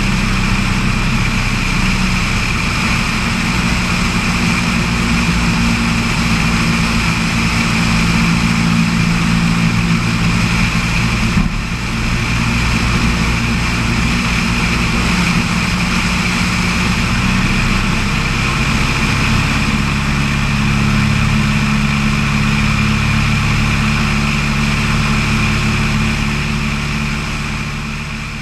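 Floatplane's piston engine and propeller running steadily, with a brief dip about a third of the way in and a slight change in engine note later on. The sound fades out near the end.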